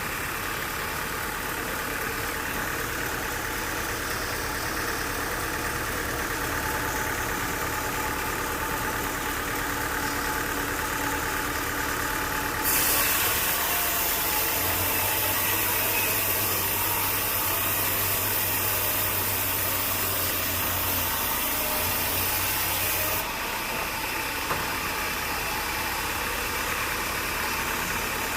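Sawmill machinery running steadily with an engine-like hum. About halfway through, a louder hiss starts suddenly and cuts off just as suddenly some ten seconds later.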